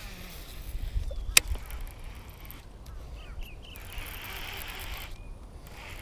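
Handling noise from a baitcasting rod and reel, with one sharp click about a second and a half in, over a low wind rumble on the microphone.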